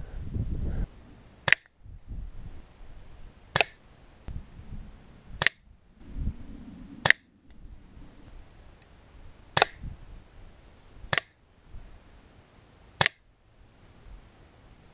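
BSA Scorpion .22 spring-piston air pistol fired seven times, sharp single cracks about one and a half to two and a half seconds apart.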